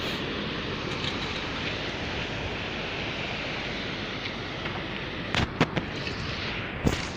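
Steady wind rumbling on the microphone with sea surf beside the rampart, and a few sharp knocks near the end.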